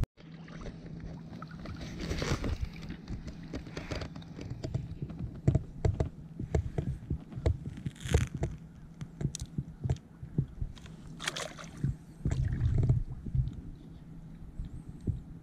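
Water sloshing and splashing at the side of a fishing boat as a hand works in the water, with a few brief splashes and many small knocks and taps on the hull.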